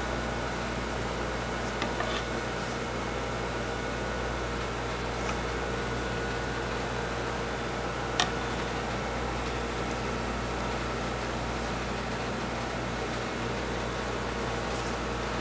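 Steady hum of a fan or ventilation unit running, with a few light clicks and one sharper tick about eight seconds in.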